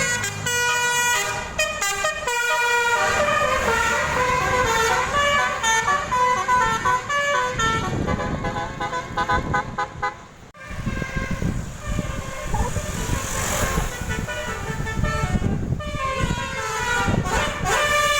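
Indonesian bus 'telolet basuri' musical horn playing a quick tune of stepping notes. The tune breaks off partway through for the rumble of a passing vehicle, then plays again near the end.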